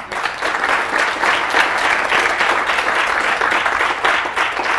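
Audience in a hall applauding: dense, steady clapping from a roomful of people.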